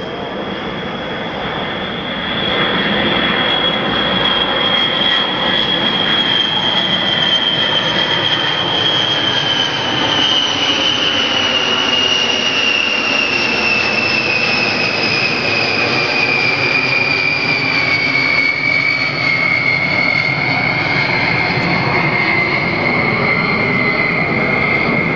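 Boeing B-52 Stratofortress's eight jet engines on a low flyover: a loud, steady rumble with a high whine that slowly falls in pitch as the bomber passes overhead and moves away. It gets louder about two seconds in.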